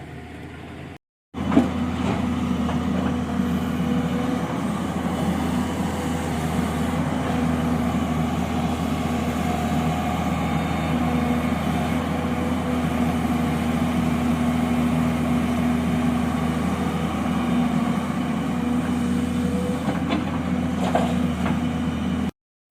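Diesel engine of heavy road-construction machinery running steadily. It cuts in abruptly about a second in, with a sharp knock just after it starts.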